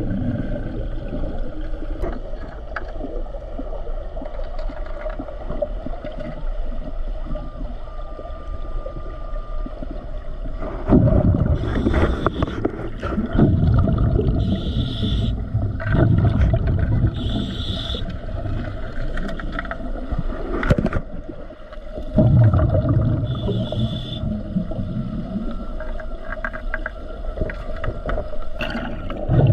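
A diver's breathing heard underwater through a surface-supplied air hose and regulator: short hissing inhalations, then long rumbling, gurgling bursts of exhaled bubbles that come and go every few seconds. A short steady tone sounds about a third of the way in.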